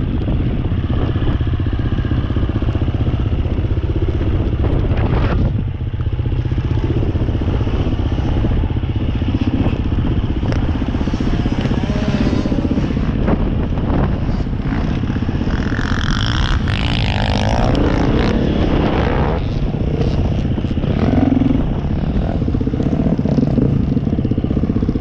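Dirt bike engine running hard while riding, its pitch rising and falling with the throttle past the middle, with scattered knocks and clatter over rough ground.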